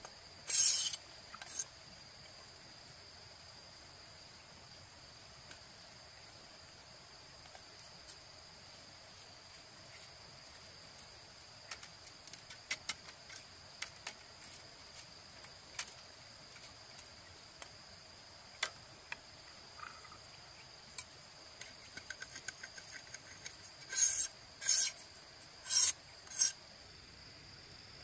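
A machete-style bush knife scraping along thin bamboo strips in rasping strokes: one just after the start, then four in quick succession near the end, with light clicks of the strips being handled in between. A steady high insect tone runs underneath.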